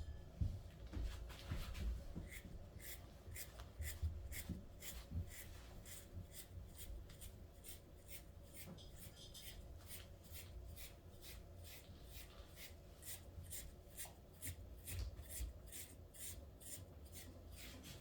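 A super-coarse stripping tool pulled through a dog's blown, shedding coat in quick repeated scratchy strokes, about two to three a second.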